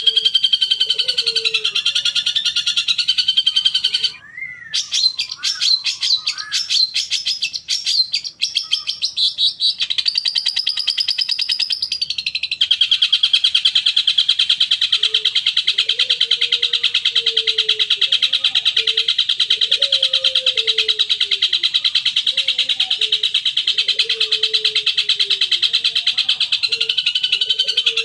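Songbird lure recording for long-tailed shrikes (cendet): fast, dense chattering trills, with a break about four seconds in into quicker, separate chirps, then a steady buzzing trill from about twelve seconds on. Lower wavering whistles run beneath it in the second half. It is played to provoke a cendet into answering.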